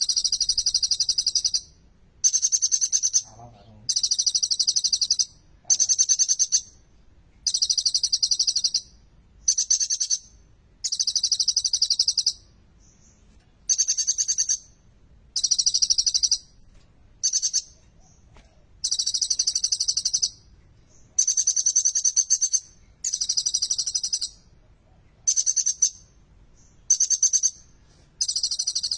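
Olive-backed sunbird (kolibri ninja) singing: a long run of high, rapid trilled phrases, each about a second long, repeated one after another with short pauses between.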